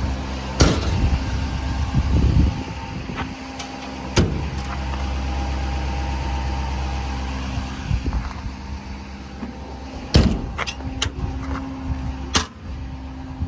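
A Duramax V8 turbodiesel idling steadily, with four sharp metal bangs and a few lighter clicks from the steel utility-body compartment doors being opened and shut.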